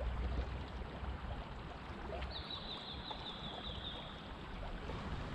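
River water running and lapping, with a low rumble throughout. About two seconds in, a high, rapidly pulsed trill starts; it falls slightly in pitch and stops after about two seconds.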